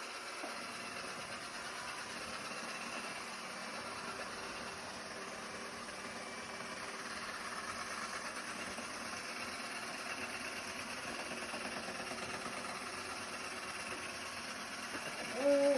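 Robot vacuum cleaner running with a steady whirring hum. A brief pitched sound comes just before the end.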